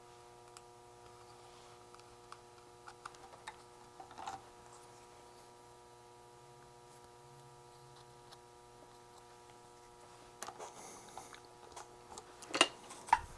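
Light clicks and taps of small electronic kit parts being handled on a workbench, over a faint steady electrical hum; two sharp, louder clicks near the end.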